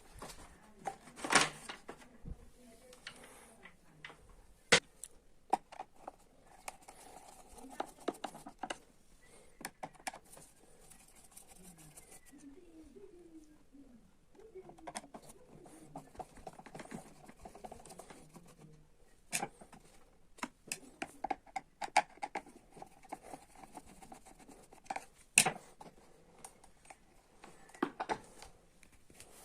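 Hands working on a vacuum cleaner being taken apart for repair: scattered sharp clicks and knocks of parts and tools, with scraping and rustling between them.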